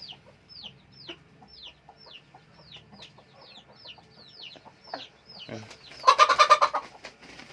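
Game-fowl chicks peeping: a steady run of short, falling peeps, about two a second. About six seconds in, a much louder, rapid pulsed call cuts in for under a second.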